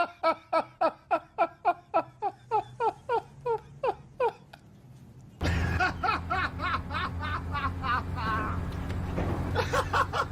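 Laughter: a long run of rhythmic "ha-ha" bursts, about four a second, falling in pitch as they die out. About five seconds in it cuts to more laughter over a steady low hum.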